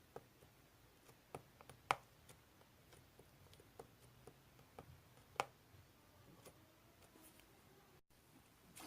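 Slime being squeezed and poked by hand, giving faint, irregular small clicks and pops, with a couple of louder pops among them.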